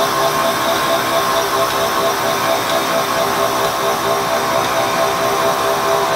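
Air-driven 40,000 RPM grinding spindle of a Moore No. 3 G18 jig grinder running, a steady air hiss with several steady whining tones held level throughout.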